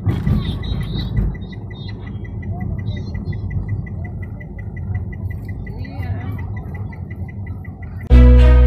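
Low, steady rumble of a car's engine and tyres heard from inside the cabin, with a faint, fast, regular ticking over it. Loud music cuts in abruptly near the end.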